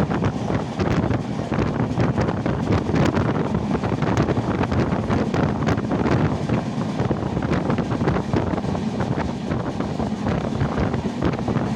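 Express passenger train running at speed, heard from on board: a steady rush of wind buffeting the microphone over the rumble of the wheels on the rails, with many short rattling clicks.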